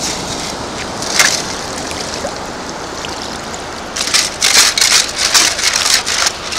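Shallow water washing over cobbles, with a single knock about a second in; from about four seconds in, a rapid, loud clatter of stones and gravel scraping and rattling in a long-handled perforated metal sand scoop as it digs into the rocky bottom.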